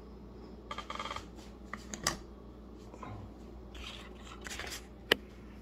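Faint handling noise: rubbing and scraping, with a few sharp clicks, about two and five seconds in, as the camera is picked up and moved about.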